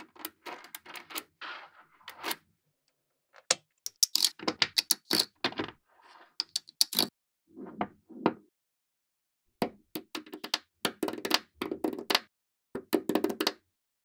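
Small magnetic balls clicking and clacking as they snap together and are pressed into place, in quick clusters of sharp clicks separated by short pauses.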